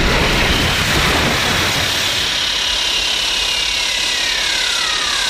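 King Ghidorah film sound effect: a loud, steady rushing blast that began abruptly, with a whine gliding down in pitch from about halfway through.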